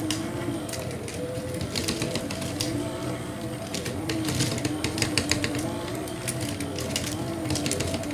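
K'Nex Zipper ride model running on its grey 12 V motor: plastic gears, chain and swinging cars click and rattle in quick irregular clusters, over a motor hum whose pitch slowly rises and falls.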